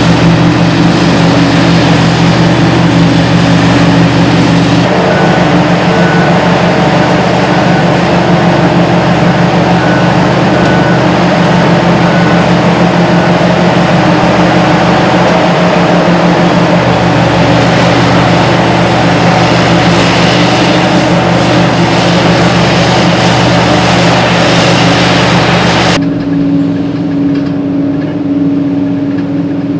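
Hitachi EX8000-6 hydraulic mining excavator running: a loud, steady mechanical drone. Near the end it turns suddenly duller and a little quieter.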